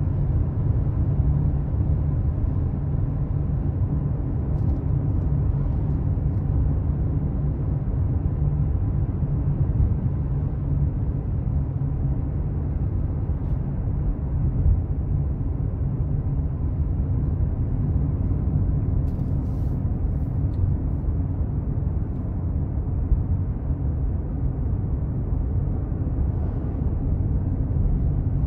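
Steady low rumble of road and engine noise inside a car's cabin while driving on a highway.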